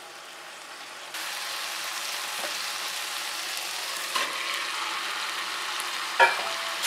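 Masala paste sizzling in a metal kadai, then a louder, steady frying sizzle from about a second in as raw turmeric-marinated chicken is added to the hot masala. There is a knock near four seconds and a sharper clatter just after six seconds.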